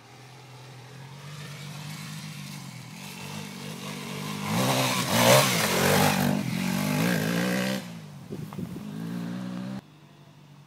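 Off-road motorcycle engine running at low revs as the bike comes down a steep slope, growing steadily louder. It is loudest about five seconds in as the bike passes close, its revs rising and falling, then fades and cuts off suddenly near the end.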